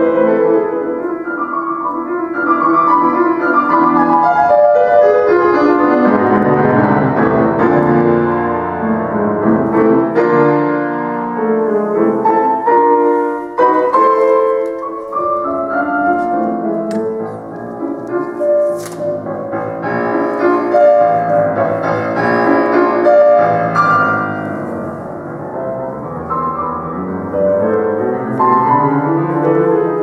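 Solo classical piano played on a concert grand: a continuous, dense flow of notes across the keyboard, swelling and easing in loudness.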